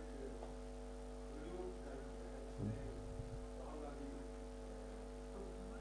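Steady electrical mains hum from the sound system under faint, distant off-mic speech, with one soft low bump near the middle.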